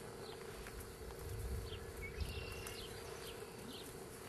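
Steady buzzing drone of insects, with a few short high chirps over it.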